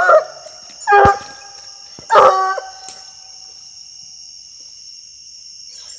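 Black and tan coonhound barking: a bark trailing off at the start, another about a second in, and a longer, drawn-out one about two seconds in. After that the dog goes quiet and a steady high trilling of night insects carries on.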